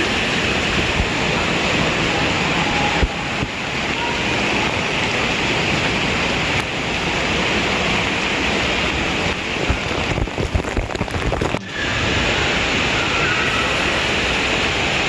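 Steady rushing of water at an indoor waterpark, with a stretch of irregular knocks about ten seconds in and a brief drop-out just before twelve seconds.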